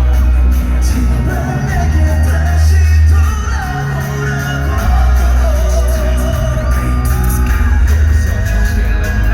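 K-pop boy band singing live over a loud backing track with heavy bass, heard through concert loudspeakers, with fans shouting along.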